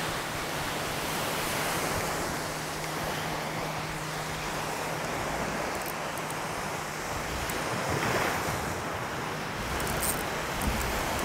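Ocean surf washing onto a beach, with wind buffeting the microphone; a wave swells loudest about eight seconds in.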